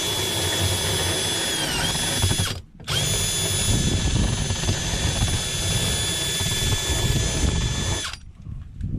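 Cordless drill with a small grinding bit running at high speed, grinding out the edge of a hole in a fiberglass boat panel. Its whine sags in pitch as it bites, cuts out briefly about two and a half seconds in, then runs steadily again and stops near the end.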